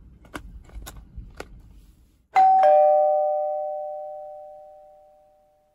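A two-note doorbell-style chime, a high 'ding' and then a lower 'dong' a quarter second later, both ringing out and fading away over about three seconds. Before it come a few light clicks of plastic lures and hooks being handled in a tackle box.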